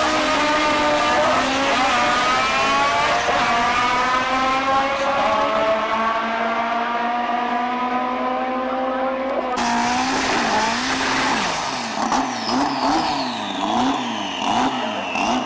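Drag racing cars launching and accelerating down the strip, the engine pitch climbing steadily as they pull away. About ten seconds in, a drag car's engine is revved up and down over and over during a burnout, with tyre squeal.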